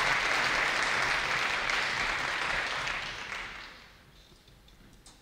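Audience applauding in a large hall. The applause dies away about three and a half seconds in.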